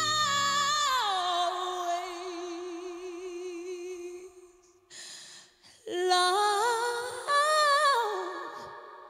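A woman's voice singing unaccompanied with vibrato as the band drops out. A long held note slides down and holds low. After a short pause, the voice climbs step by step to a higher held note that fades away.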